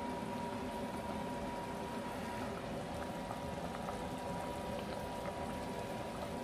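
Fish and potato curry bubbling at a steady simmer in a stainless steel pot, with a thin steady tone in the background.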